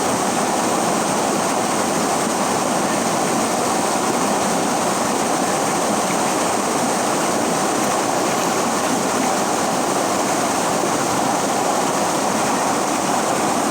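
River water flowing, a steady rushing noise that holds even throughout.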